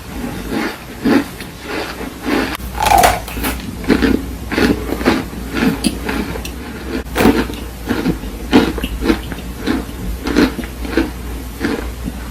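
A person biting and chewing something crunchy close to the microphone: an irregular run of crunches, about two a second.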